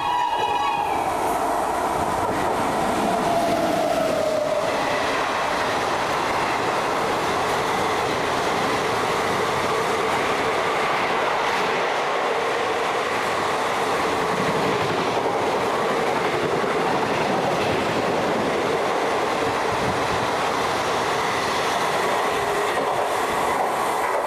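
Electric locomotive's horn cutting off about a second in, then a single tone sliding down in pitch over the next few seconds as the train goes by. After that, the steady rush of a passenger train passing at speed.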